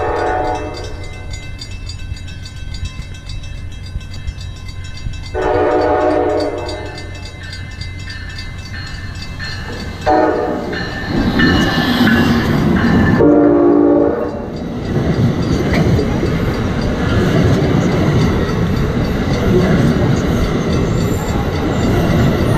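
Amtrak ACS-64 electric locomotive sounding its horn in several separate blasts as it approaches, the last about fourteen seconds in. Then the train runs past close by with a steady rush of wheel and rail noise.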